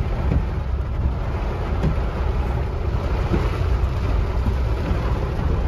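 Steady rumble inside a Maruti Suzuki WagonR's cabin as it wades through deep floodwater in heavy rain: the engine, rain on the glass and water washing around the car blend into one even noise.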